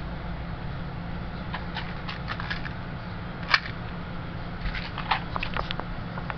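A steady low hum with scattered small clicks and taps, the sharpest about three and a half seconds in and several more close together toward the end.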